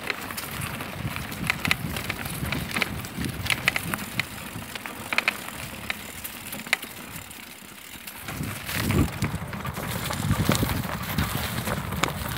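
Bicycle riding over a rutted dirt path, tyres rumbling on the ground with frequent sharp rattles and knocks. It goes quieter for a couple of seconds past the middle, then louder rumbling returns near the end.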